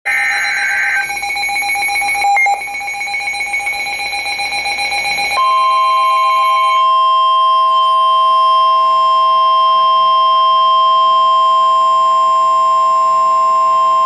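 Midland NOAA weather radio sounding a severe thunderstorm warning alert: a brief screechy digital data burst, then a pulsing beep, and about five seconds in a steady single-pitch warning alarm tone that holds unbroken.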